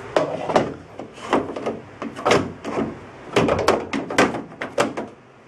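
1974 Chevy Nova taillight being handled and fitted into the car's sheet-metal tail panel: a string of irregular knocks, clunks and scrapes, with rustling of the light's plastic wrapping. The knocks stop near the end.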